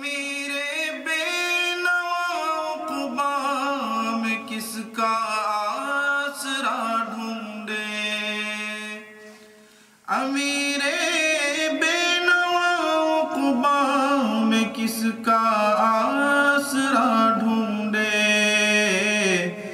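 A man singing an Urdu naat in long, held and ornamented notes. The phrase fades out about nine seconds in, and a new one begins a second later.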